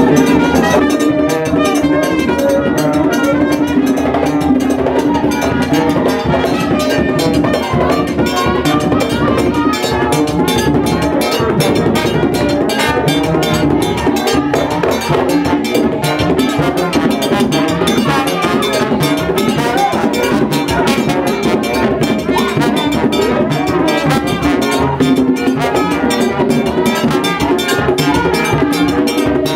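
Several Haitian Vodou hand drums played together in a fast, dense, continuous rhythm.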